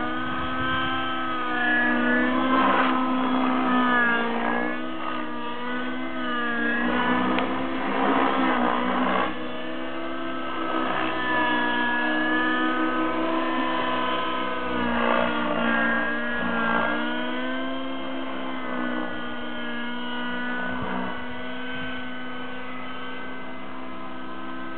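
SST Eagle Freya radio-controlled helicopter in flight, a steady mechanical whine that keeps wavering up and down in pitch as it manoeuvres.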